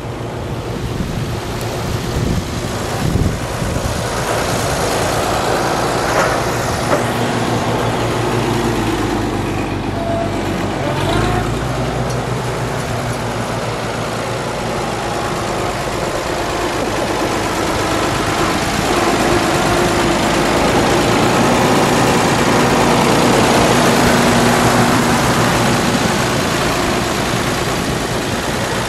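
1946 Oliver 70 Row Crop tractor's six-cylinder engine running steadily as the tractor drives along, getting louder as it comes closer, loudest a few seconds before the end.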